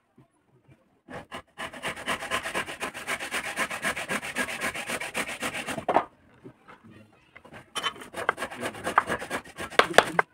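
A small carving tool scraping wood in rapid, even strokes for about four seconds. After a short pause the scraping starts again, with a few sharper clicks of the tool near the end.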